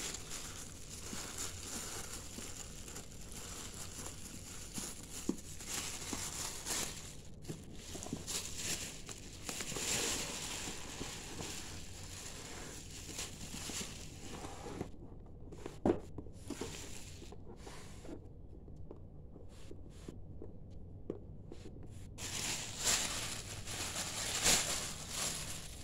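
Thin plastic carrier bag rustling and crinkling as it is handled and swept over cardboard boxes, loudest near the end. A single sharp knock past the middle.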